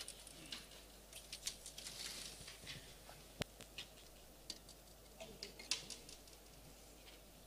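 Faint scattered clicks and light rustles over a soft hiss, with one sharp click about three and a half seconds in.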